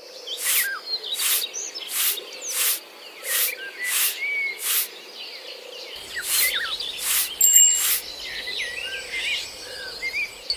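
Birds chirping and singing, over short, sharp insect-like chirps that repeat about every two-thirds of a second until about eight seconds in.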